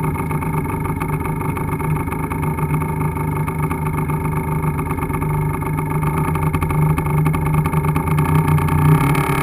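A 50 cc two-stroke motorcycle engine running at a fairly steady throttle while the bike rides through snow, heard from a camera mounted on the bike, its note holding nearly constant.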